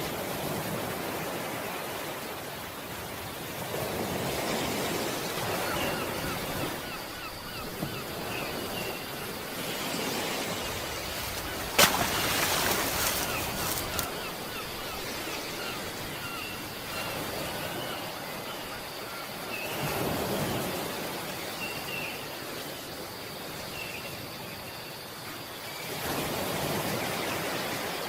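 Ocean waves washing in slow swells, with faint short chirps over them. A single sharp click about twelve seconds in.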